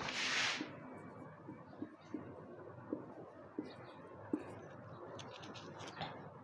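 Marker pen writing on a whiteboard: a longer scratchy stroke in the first half-second, then short soft taps and brief high squeaks as letters and lines are drawn.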